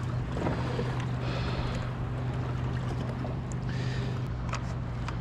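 Kayak moving through the water: water swishing along the hull in a few surges over a steady low hum.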